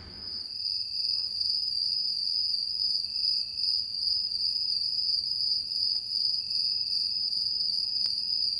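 Crickets chirping in one steady, high trill: the stock 'crickets' effect for dead silence from an unresponsive audience.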